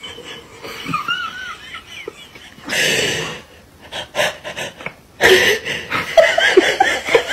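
A person laughing in breathy, wheezing bursts, much louder and more rapid from about five seconds in.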